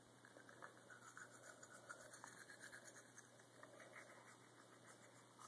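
Faint toothbrush bristles scrubbing a toddler's teeth in quick, scratchy strokes.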